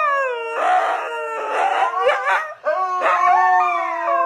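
Two huskies howling together: long, overlapping howls that glide up and down in pitch, with a short break a little past halfway before they start again.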